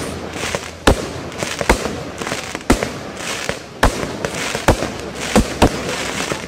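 Fireworks display: a quick run of sharp bangs from aerial shells bursting, about one a second, with a hiss filling the gaps between them.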